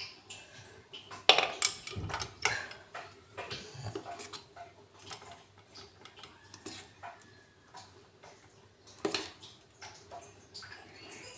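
A steel spoon clinking and scraping against an aluminium idli plate and a steel bowl as batter is spooned into the molds, with louder metal clanks about a second and a half in and again about nine seconds in.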